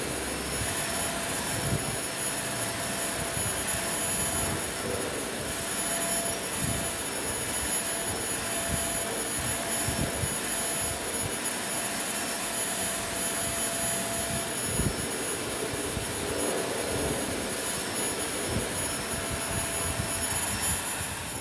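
Vacuum cleaner running steadily as its floor head is worked over a shag rug: a steady rushing noise with a high whine, plus a few dull bumps.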